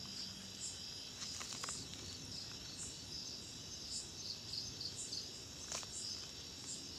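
Steady chorus of insects chirping in a high band, pulsing about once or twice a second, with a few faint clicks about one and a half seconds in and again near the end.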